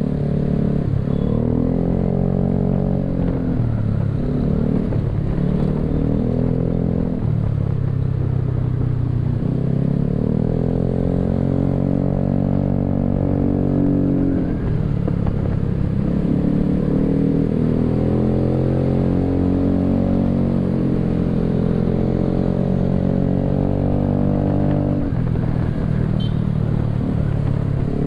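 Vespa scooter's single-cylinder four-stroke engine heard through an aftermarket Prospeed exhaust on the move. Its note climbs as the scooter accelerates and falls back when the throttle eases, several times over, with a short dip near the end.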